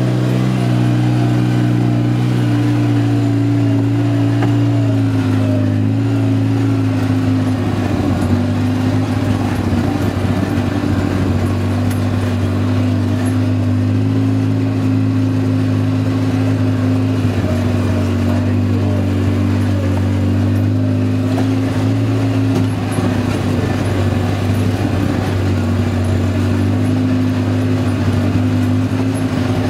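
Side-by-side UTV engine running steadily from inside the open cab, its pitch dipping and rising a little with the throttle, over the noise of the ride.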